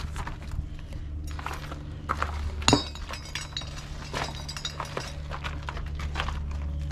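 Scattered knocks and footsteps over a steady low hum, with one sharp metallic clink about three seconds in, as a removed RV wheel is handled and moved.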